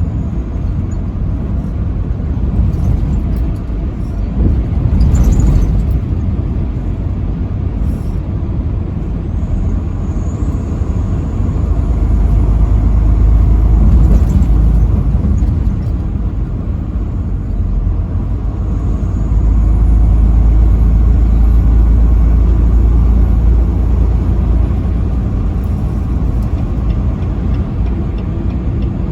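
A road vehicle driving at highway speed: a steady low rumble of engine and road noise that swells louder for a few seconds twice.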